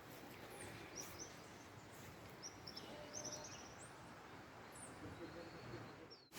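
Faint birdsong: scattered short high chirps and quick falling whistles, with a run of rapid repeated notes around the middle, over a soft steady background hiss.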